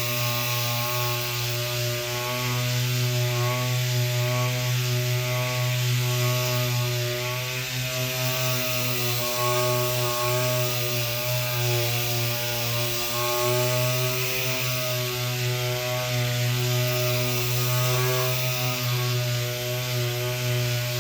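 Electric power sander running steadily, sanding down wood filler, its motor hum wavering slightly in pitch over a constant hiss.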